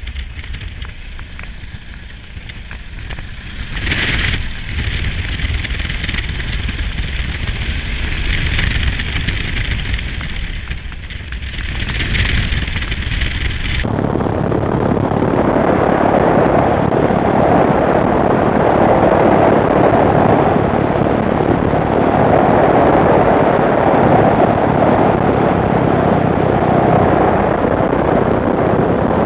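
Fokker Dr.I triplane's engine and propeller running steadily while taxiing. About halfway through, the sound changes abruptly to a louder, more muffled mix of engine and wind rush as the triplane moves fast close to the ground.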